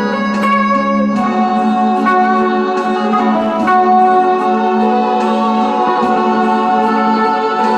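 Guitar with effects playing a slow, mournful melody in F minor, held notes changing about once a second, over an accompaniment with a steady low sustained note.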